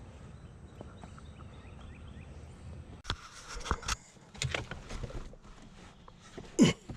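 A girl's bicycle being handled: after a few seconds of low rumble, a run of clunks and rattles, the loudest a heavy knock near the end.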